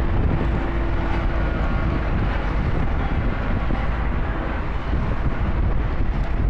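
Vibratory road roller running with its drum vibration switched on: a steady, heavy low rumble with a faint hum that fades after about two seconds.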